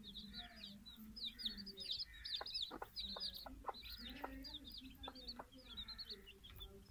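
Domestic chicks peeping nonstop in quick, high, falling chirps, over the low clucking of the mother hen.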